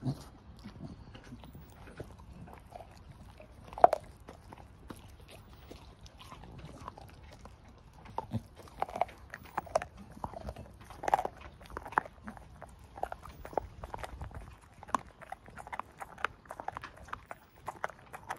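Staffordshire bull terrier chewing a raw pork trotter: irregular crunching bites and clicks, with one sharp loud snap about four seconds in. The bites are sparse at first and come thick and fast from about eight seconds in.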